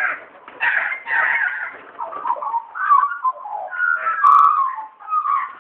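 Several Australian magpies carolling: overlapping warbling calls that glide up and down, loudest a little past the middle.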